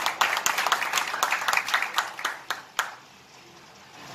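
Audience applauding, the clapping thinning to a few last single claps and stopping about three seconds in.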